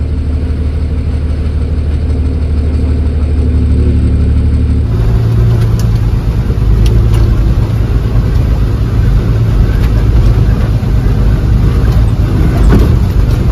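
Bus engine running steadily, heard from inside the passenger cabin, with a few light rattles; the sound changes abruptly about five seconds in.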